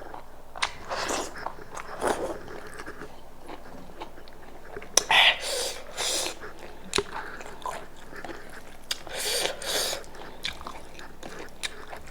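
Close-up eating sounds: a person biting and chewing goat meat, with irregular wet smacks and sharp little clicks.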